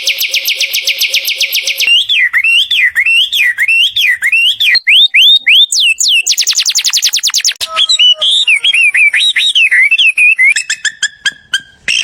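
Bird calls in quick succession: a fast, high trill, then repeated whistled notes swooping up and down, another fast trill about six seconds in, then twittering and a run of sharp clicks near the end.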